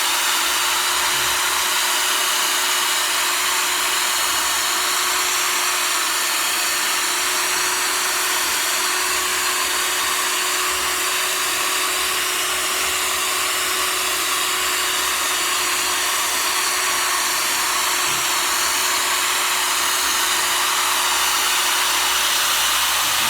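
Cordless power tool spinning a 3000-grit sanding disc against a plastic headlight lens during wet sanding: a steady whir with one held tone.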